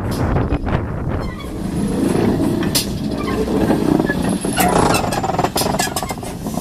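Heritage railway train running: a steady low rumble that builds about two seconds in, with a run of sharp clanks and clicks.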